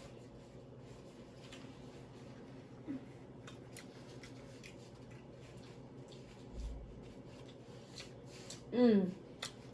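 Quiet eating: faint, scattered mouth clicks and smacks of someone chewing, with a short hummed "mm" near the end.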